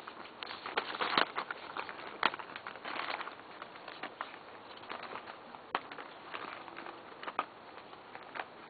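Anatolian Shepherd puppies' paws scuffing and crunching through dry leaves and twigs: irregular crackling and rustling, loudest about a second in.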